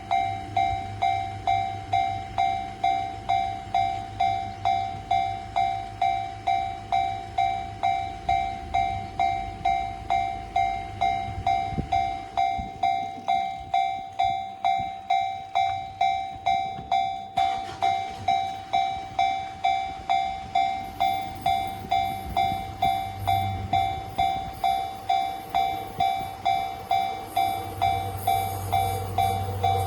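Japanese railway level-crossing warning bell ringing, a steady repeated electronic ding at just under two strokes a second. Yamanote Line trains rumble through the crossing beneath it.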